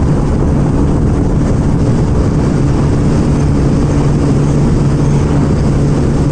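Single-cylinder commuter motorcycle engine held at steady high revs at top speed, its note not changing, with wind rushing over the microphone.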